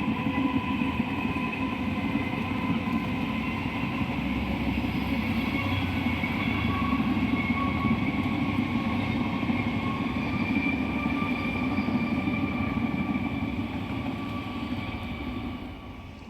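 A train running past: a steady rumble with high, steady squealing tones over it, dying away near the end.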